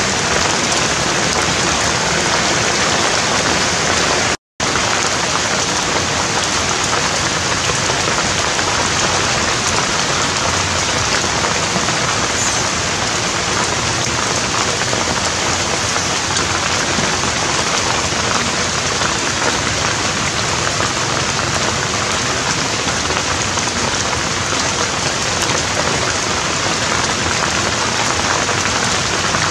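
Heavy rain falling steadily, a dense, even hiss that does not let up, with a split-second dropout to silence about four seconds in.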